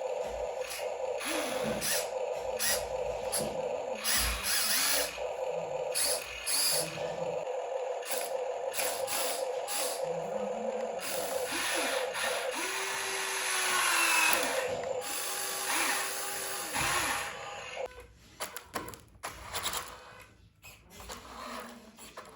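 Small electric motors of radio-controlled models whining: a steady high whine with shorter whines that rise and fall in pitch over it. The steady whine stops about 18 seconds in, leaving a few clicks and knocks.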